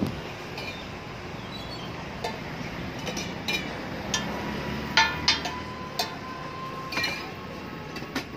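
Steel utensils clinking at a street-food cart: a series of sharp metallic clinks that ring briefly, coming at irregular moments, the loudest about halfway through.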